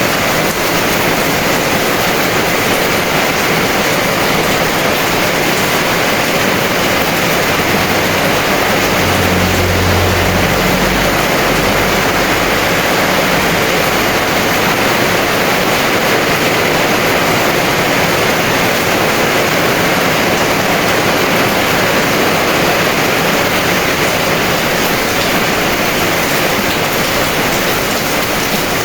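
Heavy rain pouring steadily, a dense even hiss. A brief low rumble comes about nine seconds in and fades within a few seconds.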